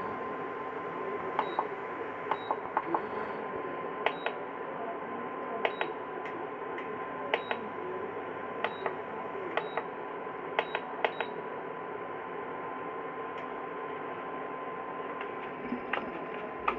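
Induction cooker's power button being pressed over and over, clicking in quick pairs about every second or so, many presses with a brief high beep. A steady faint whine runs underneath. The button is failing and does not reliably switch the cooker on.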